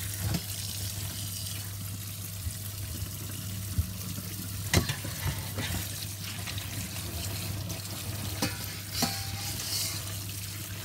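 Tap water running onto boiled chicken pieces in a wire-mesh strainer over a stainless steel sink: a steady splashing hiss, with a few sharp knocks of the strainer, the loudest about five seconds in.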